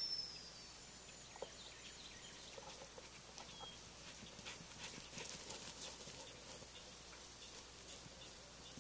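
Quiet field ambience: a single high whistle note at the very start that dips and fades, then about a second and a half of light rustling crackle around the middle, with faint scattered bird chirps.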